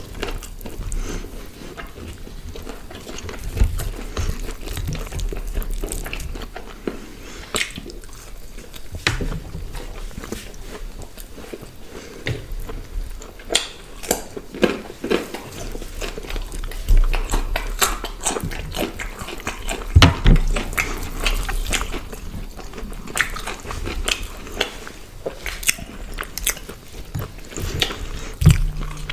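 Close-miked eating: grilled chicken being bitten, torn and chewed with paratha, many small irregular crunches, clicks and wet mouth sounds.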